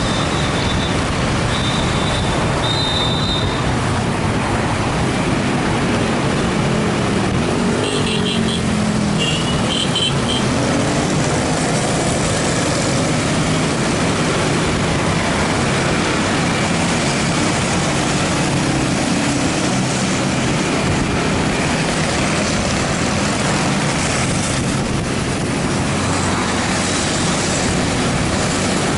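Steady rush of road and wind noise with engine hum, riding in city traffic among motorcycles. Short high-pitched tones sound at the start and again about eight seconds in.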